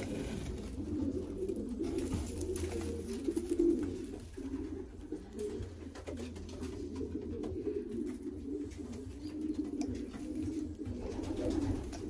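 Racing pigeons cooing continuously in the loft, a dense overlapping murmur of low coos, with a few faint clicks and straw rustles as the nest bowl is handled.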